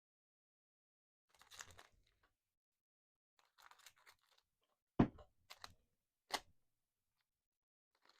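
Trading cards being handled: two soft rustling slides, then three short sharp clicks or taps of card on card, the first the loudest.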